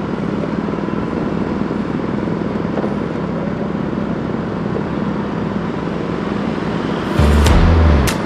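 Steady engine and road noise of a vehicle on the move. About seven seconds in, a loud low rumble lasts about a second, with a few sharp clicks.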